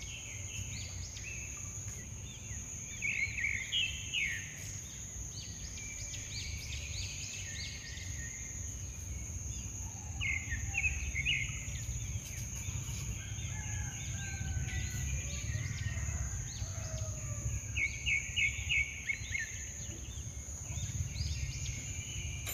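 Outdoor ambience: small birds chirping in quick runs of notes, three or four times, over a steady high whine and a low rumble.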